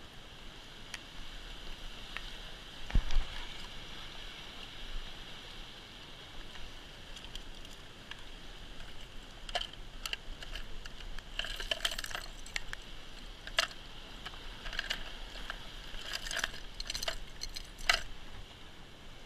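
Waves washing on the rocks give a steady background, with one thump about three seconds in. From about ten seconds in come irregular clicks and rattles of a hand rummaging through a plastic tackle box and lifting out metal pliers.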